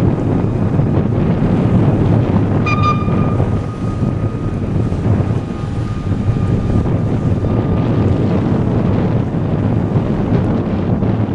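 Gusty wind buffeting the microphone, a steady low rumble throughout. About three seconds in, a short high-pitched tone with overtones sounds, then a fainter steady tone lingers until about eight seconds.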